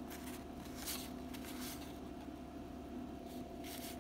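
Soft rustles and scrapes of a stack of 1991 Donruss baseball cards being squared up and fanned out in the hands, a few brief slides of card against card, over a steady low hum.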